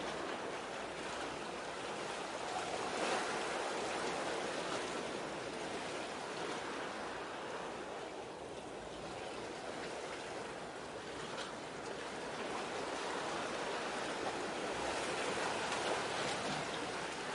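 Small waves washing and lapping at the water's edge, a steady rushing that swells and eases every few seconds.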